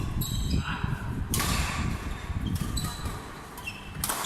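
Shoes squeaking on an indoor court floor amid thudding footsteps, with a sharp smack about a second in and another near the end.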